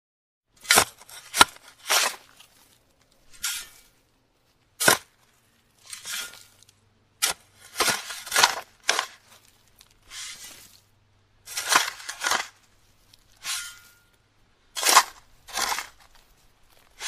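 A small metal shovel scraping into dry sand and tipping scoops of it into a plastic toy truck's bed. It comes as a string of short scrapes and pours, about one a second.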